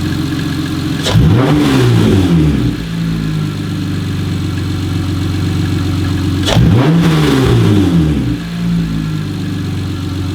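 Acura TL's V6 with a straight-piped exhaust and the stock intake, idling and blipped twice, about a second in and again about six seconds in, each rev rising and falling back to idle. It is pretty loud, in a garage.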